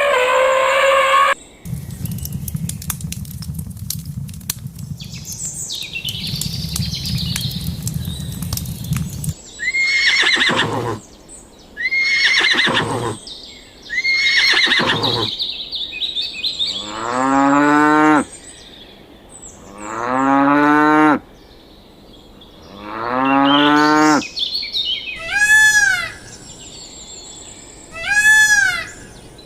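A run of different animal calls one after another. First comes a low rumbling noise lasting several seconds, then three short calls that fall steeply in pitch. Next are three long, deep cattle moos, and near the end several short, high, arched calls.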